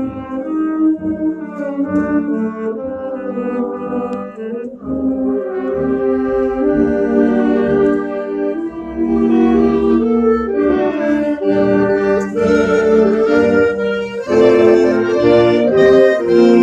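Wind band playing: brass and saxophones holding sustained chords over drums, the sound growing fuller and louder from about six seconds in.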